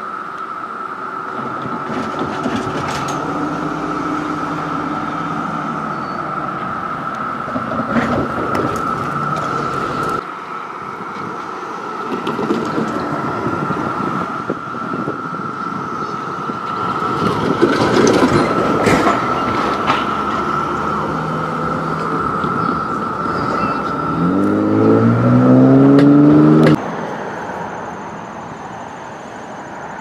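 Chorus of periodical (17-year) cicadas as a steady, loud drone over the rumble and knocks of nearby vehicles, with an engine revving up about 24 seconds in. Near the end the chorus cuts off abruptly and a thinner, higher steady buzz of an annual cicada takes over.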